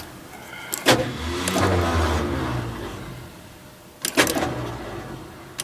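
Ford Ranchero engine being cranked by its starter, which the owner means to replace. About a second in there is a click, then the starter turns the engine over for roughly two and a half seconds without it catching. A little after four seconds there are more clicks and a shorter crank.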